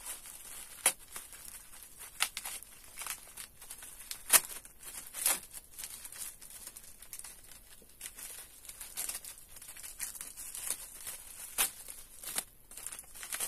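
Plastic packaging of Charm sanitary pads crinkling and tearing as it is opened, with irregular crackles and several sharper, louder rips and snaps.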